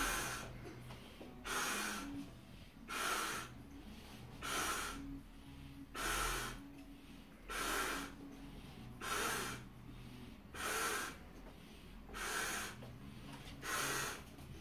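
A man breathing hard while blowing up a giant latex balloon by mouth: a loud, hissing rush of breath about every second and a half, in a steady rhythm, as he draws air and blows it into the balloon.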